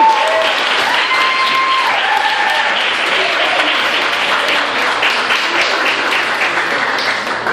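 Audience applauding, dense clapping with a few shouts and cheers over it, dying down near the end.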